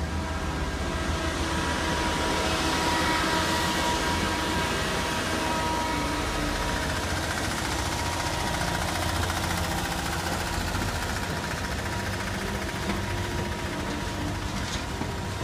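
Passenger cars of a train rolling past on the rails: a steady rumble of steel wheels on track with a thin high whine over it.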